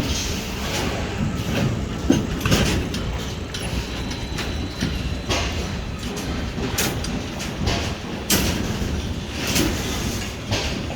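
Construction site noise: irregular metallic clanks and knocks over a steady low rumble.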